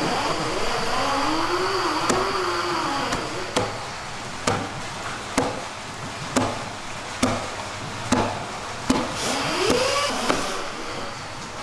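Heavy cleaver chopping through a giant eel into steaks on a wooden cutting board, about ten strokes a little under a second apart. Under the chops a wavering mechanical whine rises and falls in pitch near the start and again near the end.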